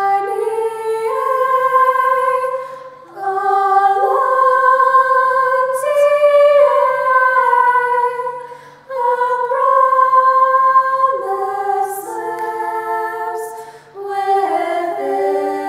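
A small group of women singing a cappella in close harmony, holding long notes in phrases with brief breaks between them.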